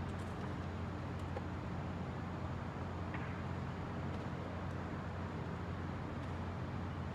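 Steady low hum of background machinery, with a few faint clicks of wooden chess pieces being set down and the chess clock being pressed.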